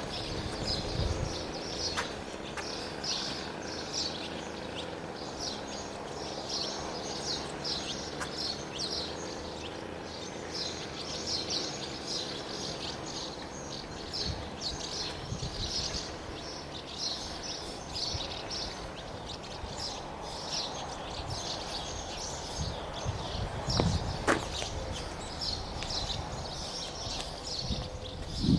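Small birds chirping continually, a rapid run of short high chirps, over steady outdoor background noise. A few low thuds break in, the loudest near the end.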